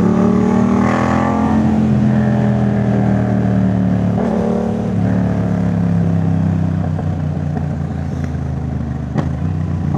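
Yamaha MT-07 parallel-twin engine through a Jeskap full exhaust system, heard from the bike while riding. The revs climb for about a second, then slowly fall off as it eases off the throttle.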